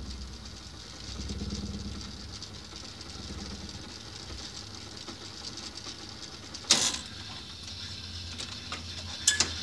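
A machine running: a low hum with a fine rapid flutter, with a sharp click about seven seconds in and a few more clicks near the end.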